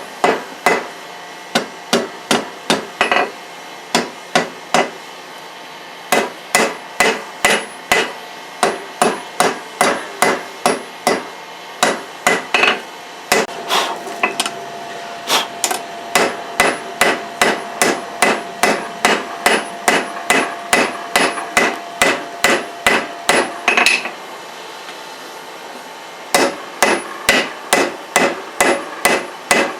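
Hand hammer blows on hot leaf-spring steel on an anvil, about three sharp strikes a second, drawing out and shaping a knife blade. The hammering breaks off briefly twice before picking up again.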